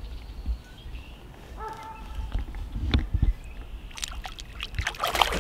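A hooked carp splashing and sloshing at the surface beside a kayak, building to its loudest splash near the end.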